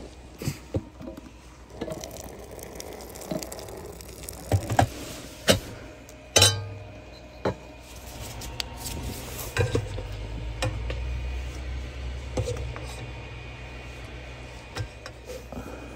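Metal camp cookware being handled: a steel pot lid and pot knocked and set down, with several sharp clanks, the loudest one ringing briefly about six seconds in. A utensil then clinks and scrapes against the pot as cooked pasta is scooped out.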